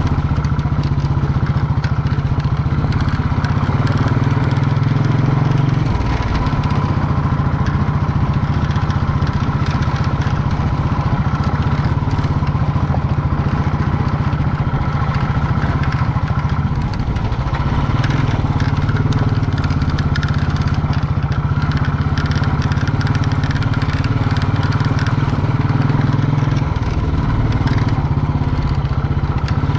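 Motorcycle engine running steadily on the move, with road and wind noise. The engine note changes a few times.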